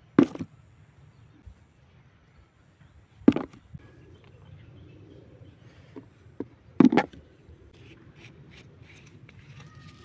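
A clod of dry earth knocking onto and being pressed against a cardboard sheet laid over soil: three sharp knocks about three and a half seconds apart, with a few lighter clicks between the second and third, over a steady low hum.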